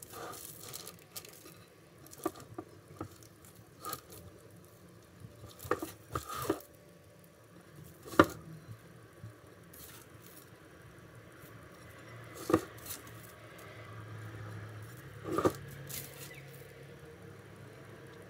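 Hands gathering chopped walnuts off baking paper and pressing them onto the cream-covered sides of a cake: soft rustling and pattering of nut crumbs, with scattered light knocks, the loudest about eight seconds in.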